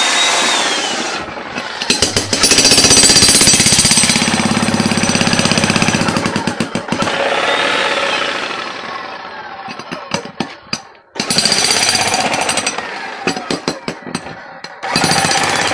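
Electric demolition hammer chiselling into a concrete floor. It runs continuously for about ten seconds, stops briefly, and then starts and stops in short spurts before running again near the end.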